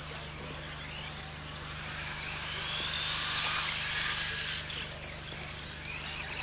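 Radio-controlled model buggy's motor whining at high speed as the car drives past, rising and falling in pitch and loudest about three to four seconds in, over a steady low hum.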